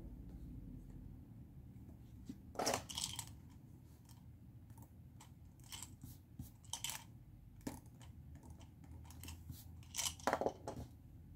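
Desk handling noises: a few groups of short clicks and rustles as a pen is set down on a paper handout and a drinking cup is picked up from its coaster, the loudest cluster near the end.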